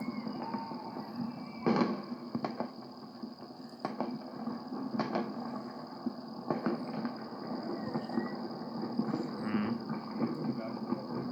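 Firecrackers going off: a handful of short, sharp bangs at irregular intervals, the strongest a little under two seconds in, over a steady background hiss.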